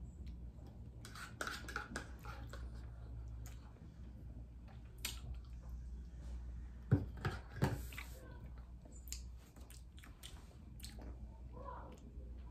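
A person eating canned pasta with a metal spoon: soft chewing and mouth sounds with scattered small clicks of the spoon. Two sharper clicks come about seven seconds in, over a steady low hum.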